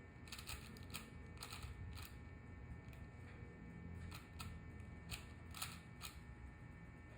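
Plastic clicking and clacking of a 4x4 Rubik's cube being turned quickly in the hands during edge pairing, about a dozen sharp clicks at uneven spacing over a low steady hum.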